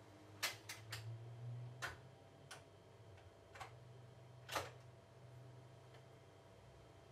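Studer A810 reel-to-reel tape recorder's transport buttons and mechanism clicking as its controls are pressed: about seven sharp clicks, loudest about half a second in and again near the middle, as the reels stop and start winding again. A faint steady low hum from the spooling reels runs underneath.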